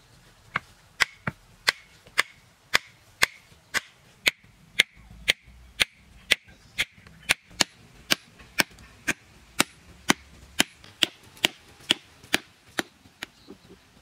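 Sharp, evenly spaced knocks of wood being struck while building a stick fence, about two a second, around thirty strikes that stop just before the end.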